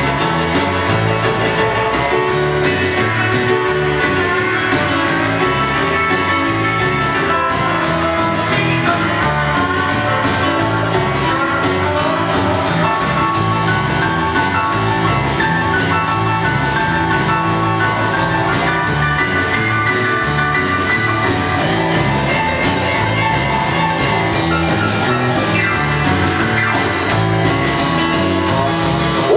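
Live country music: an electric guitar played over a steady bass line and beat.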